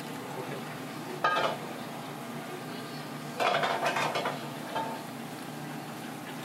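Kitchen clatter of metal utensils and dishes: a sharp ringing clink about a second in, then a longer, louder clatter around the middle and a smaller knock after it, over a steady low hum.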